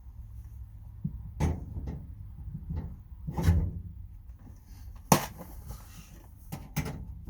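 Knocks, clicks and a scrape from working a tool box drawer and its rails, with the loudest sharp knock about five seconds in and a run of quick clicks near the end.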